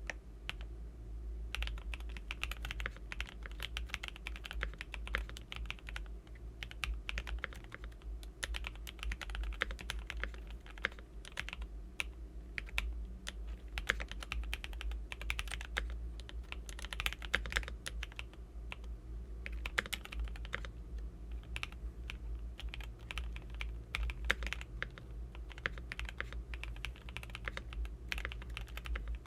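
Continuous fast typing on a Tofu65 mechanical keyboard with a PC plate, ePBT keycaps, and lubed and filmed Black Cherry Pie linear switches with 62 g gold-plated springs: an uneven, steady stream of keystroke clacks that gets dense about a second and a half in.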